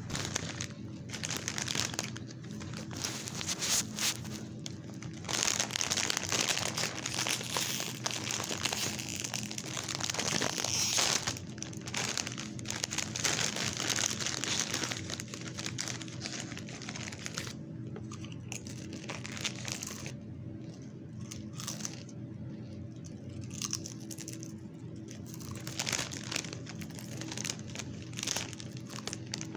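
A food wrapper crinkling and rustling as it is handled, in irregular bursts that are densest and loudest from about 6 to 15 seconds in. A faint steady hum runs underneath.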